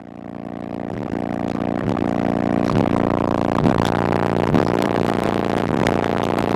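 Sundown 15-inch car subwoofer playing bass at extreme excursion: a loud, steady low drone with a pulse repeating a little faster than once a second, fading in over the first second.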